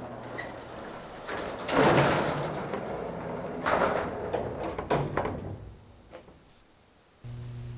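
Elevator doors sliding and clanking: a loud metal clunk about two seconds in, then more rattling knocks around four and five seconds, dying away. A steady motor hum starts suddenly near the end.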